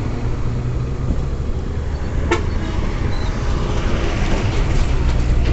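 Road traffic, with a steady low engine rumble and a couple of faint short horn toots; a single sharp click a little over two seconds in.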